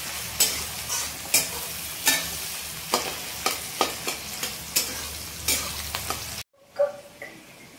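Onions frying in hot oil in a metal kadai, sizzling, while a flat metal spatula stirs and scrapes them around the pan in repeated strokes, about one every half second to second. The sound cuts off abruptly about six and a half seconds in.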